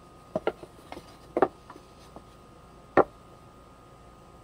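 Pine boards knocking against each other and the bench as they are stood up and fitted together into a box: a few short, sharp wooden knocks, the loudest about three seconds in.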